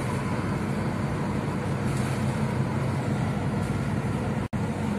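Steady engine and road noise heard from inside a moving car's cabin, with a low hum underneath. The sound cuts out for an instant about four and a half seconds in.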